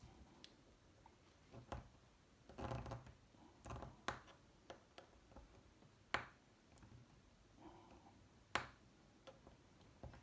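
Scattered sharp plastic clicks and taps as the locking tabs of a BMW iDrive controller are pried up, with the loudest clicks about six and eight and a half seconds in.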